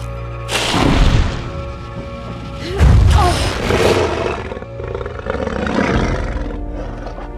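Dark orchestral film score under a large dragon's roaring growl, with two deep booming hits about one and three seconds in.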